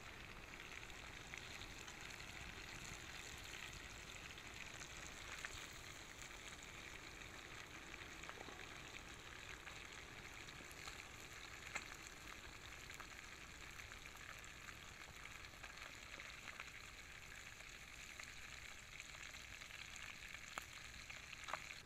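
Pieces of boga fish frying in oil in a pan over a wood fire, a faint steady sizzle. A few light clicks come through it.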